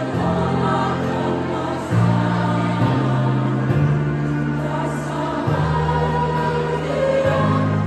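Women's choir singing in harmony over an accompaniment whose low held bass notes change every second or two.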